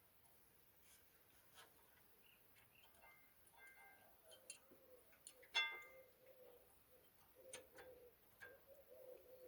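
Near silence, with faint scattered clicks and taps of metal brake parts and tools being handled, and one brief ringing metallic clink a little past halfway.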